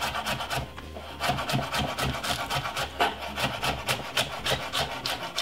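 Chef's knife slicing a spring onion on a wooden chopping board: quick, even strokes of the blade hitting the wood, about five a second.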